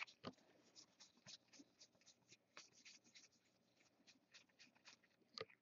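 Near silence with faint, scattered ticks and papery rustles of football trading cards being handled and slid off a stack.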